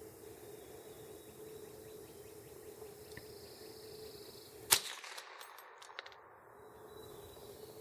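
A single sharp crack of a .22 LR rifle shot from a Ruger 10/22, about two-thirds of the way in, followed by a second of faint echoing ring.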